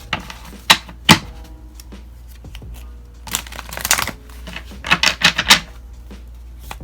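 Tarot cards handled and shuffled by hand: two sharp snaps about a second in, then two bursts of rapid card rattling.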